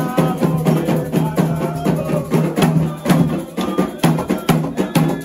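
Candomblé ritual drumming: atabaque hand drums playing a fast, steady rhythm with a sharp, high struck percussion part keeping time.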